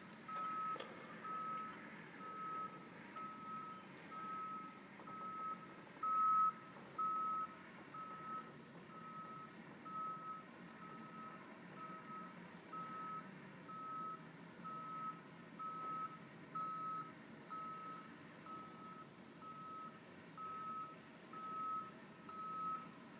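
A vehicle's backup alarm beeping steadily on one tone, a little faster than once a second, over a low steady rumble. Two beeps about six seconds in are louder than the rest.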